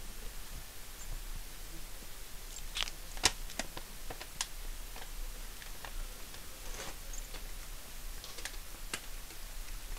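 Sparse, irregular small clicks and crinkles from the handling of a plastic cat treat tube and the metal tags on a cat's collar, with one sharper click about three seconds in.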